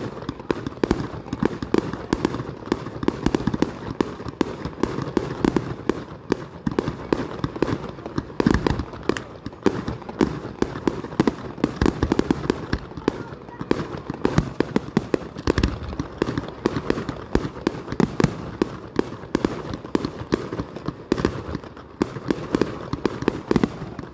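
Fireworks display: a dense, continuous run of bangs and crackles from aerial shells bursting several times a second, with a few deeper booms.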